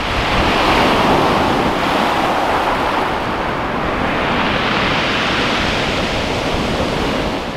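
Waves breaking and washing up a shingle beach: a steady surf hiss that swells about a second in and again around the middle.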